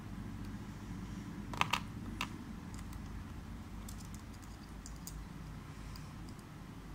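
Small sharp clicks of a hand tool against the LED fidget spinner's plastic parts and coin-cell battery as the battery is worked out: three clicks close together about a second and a half in, then a few fainter ticks later, over a low steady background hum.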